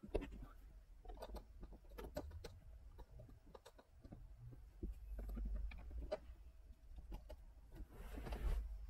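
Faint handling noises as a dash-cam cable is pressed into the roof lining and plastic trim by hand: scattered small clicks and rubs, then a short scraping rustle near the end.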